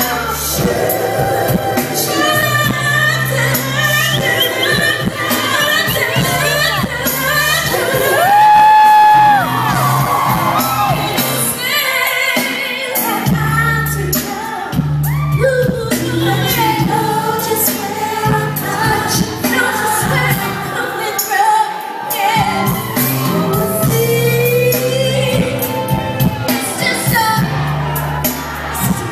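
Live R&B song: a female lead vocalist sings into a handheld microphone over band accompaniment with a repeating bass line, heard from within the audience. About a third of the way through she holds one long high note, the loudest moment.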